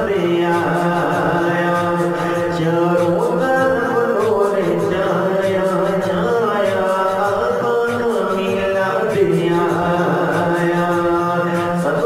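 Urdu naat, an Islamic devotional song: a voice holds long notes that slide between pitches over a steady low beat, with no words made out.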